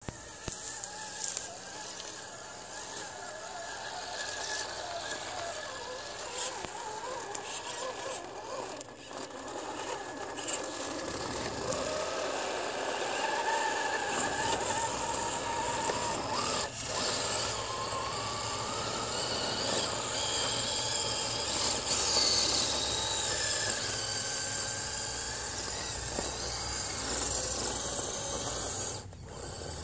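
Traxxas TRX-4 Sport RC crawler's electric motor and gears whining as it drives over snow and rock, the whine rising and falling in pitch. A low rumble joins about eleven seconds in.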